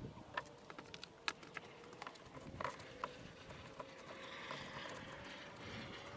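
Faint, irregular clicks and knocks of stones and hand tools being handled during stone arch building, with a faint steady hum beneath.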